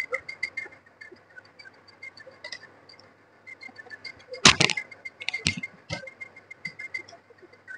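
Eggs clinking against one another and the plastic rollers as they are set by hand into an incubator's egg-turner tray: a run of quick, light clicks with a faint ring, and two louder knocks about four and a half and five and a half seconds in.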